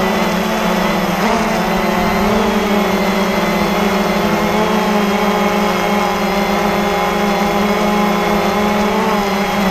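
Cheerson CX-20 quadcopter's four electric motors and propellers whirring steadily, close to the onboard camera, with a strong hum and a slight wavering in pitch as the motors adjust in flight.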